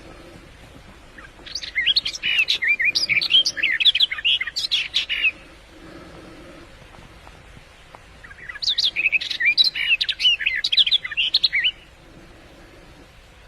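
A small songbird sings two bouts of rapid, jumbled high chirps and trills, each about four seconds long, with a pause between them. It is a hunting lure call of the bird known in Arabic as the fig bird, 'Abu Zureiq'.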